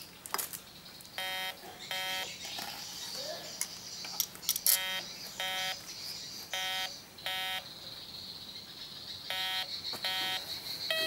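MD-9020C metal detector beeping: four pairs of short, buzzy tones a couple of seconds apart, signalling a metal target at the search coil, which is read as iron. A few sharp handling clicks fall in between, the loudest about halfway through.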